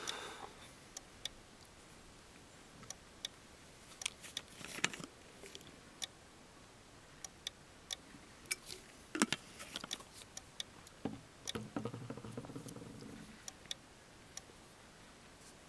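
Faint scattered light clicks and brief handling rustles, irregular in timing, with a short cluster of clicks about nine seconds in and a soft low rustle around eleven to thirteen seconds in.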